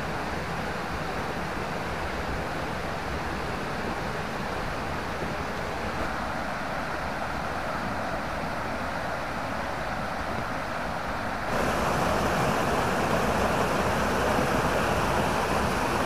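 Steady rush of water from a rocky stream, with no distinct events, growing louder and brighter about three quarters of the way through.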